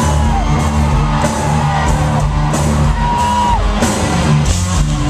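Hard-rock band playing live: distorted electric guitars, bass and drum kit in an instrumental passage between sung lines.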